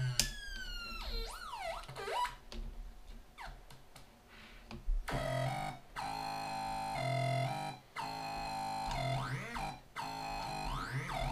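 A homemade synth built on a Synthrotek NAND Synth board, inside a Mr Potato Head toy, played by hand. Its electronic oscillator tones swoop and glide up and down in pitch, with stretches of quickly stepping, warbling notes in between. The sound cuts out abruptly a few times.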